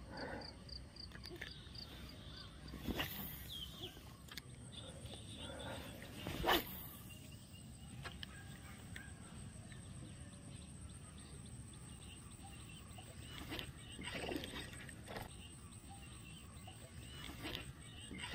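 Faint rural outdoor ambience with birds calling now and then and a few brief knocks, the loudest about six and a half seconds in.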